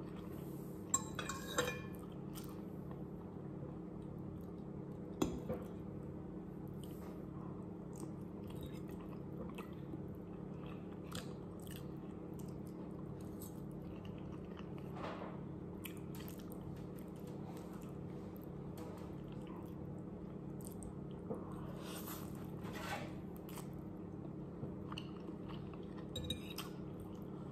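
Eating pancit canton instant noodles with a fork: chewing and slurping of noodle strands, with a few short clicks of the metal fork against the ceramic bowl, over a steady low hum.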